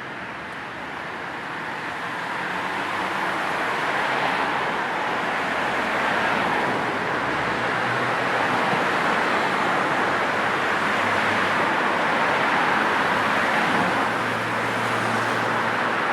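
Road traffic: a steady rush of passing cars and tyre noise that swells over the first few seconds and then holds, with a low engine hum underneath.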